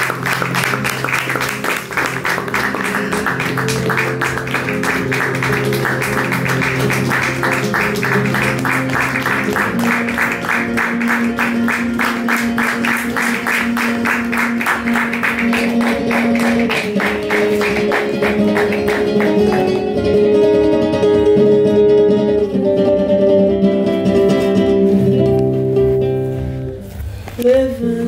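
Solo classical nylon-string guitar. It plays fast, even rhythmic strumming for about the first two-thirds, then switches to slower picked notes that ring on, with a brief drop in level near the end.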